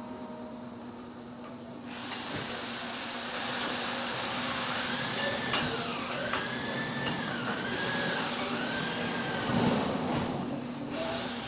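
An electric power tool starts about two seconds in and runs with a high whine. Its pitch dips and recovers several times as it works the stainless steel, with a couple of sharp clicks.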